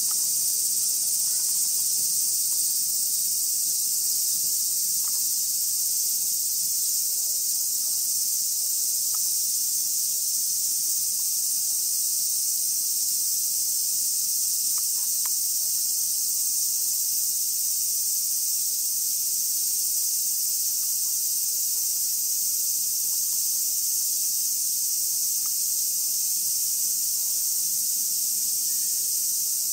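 Steady, dense high-pitched drone of a summer insect chorus, cicadas, with no breaks.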